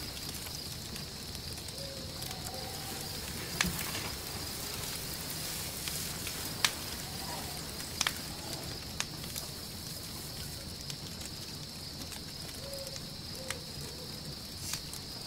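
Quiet night ambience of a stable: a small fire crackling, with sharp pops now and then, over a steady high background chirring and a few faint short animal calls.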